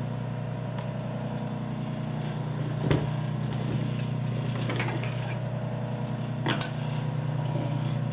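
Steady hum of an industrial sewing machine's motor running while the needle is still, with a few sharp clicks and clinks of scissors and small items handled on the table, the loudest about three seconds in and again about six and a half seconds in.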